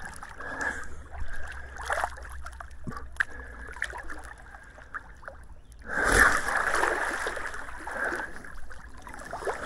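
Swimming-pool water splashing and lapping as people move and swim in it, with a louder rush of splashing about six seconds in that fades over a couple of seconds.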